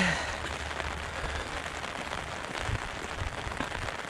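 Steady rain falling, an even hiss, with a few dull low thumps in the second half.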